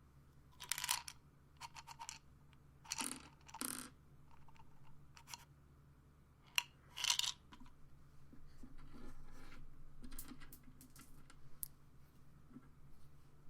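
Pills rattling and clicking in a pill bottle handled by hand: a series of short rattles and a sharp click in the first seven seconds or so, then a softer, longer rustle and a few small clicks.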